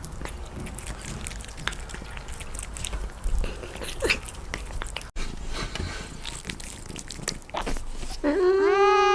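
Cat eating close to the microphone: scattered small clicks and smacks of chewing. Near the end the cat gives one long meow that rises and falls in pitch.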